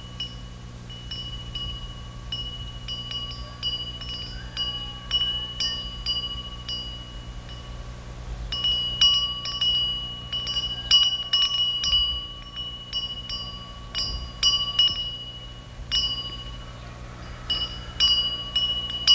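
Small metal wind bells hanging from pagoda eaves, tinkling at irregular intervals, each strike ringing on at the same few pitches. The strikes come sparsely at first and crowd together from about halfway through.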